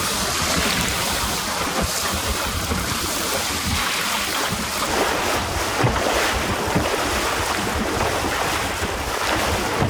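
Wind buffeting the microphone over the steady rush of water along the hull of a small sailing dinghy under way.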